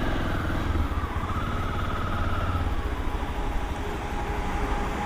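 Motorcycle engine running on the move, with steady low rumble and road and wind noise. A pitched whine rises and falls over the first couple of seconds.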